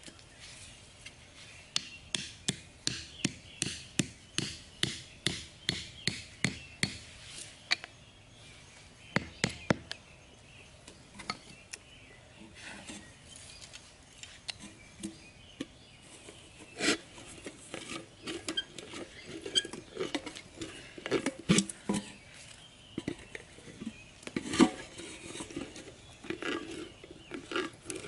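Close hand-work on a plastic bottle and a tin can: a run of sharp clicks, about two a second, over the first several seconds, then scattered louder clicks and scraping as the bottle is cut with a small blade.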